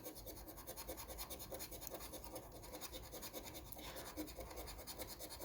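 Scratching off the coating of a scratch-off lottery ticket: faint, quick, even scraping strokes, many a second.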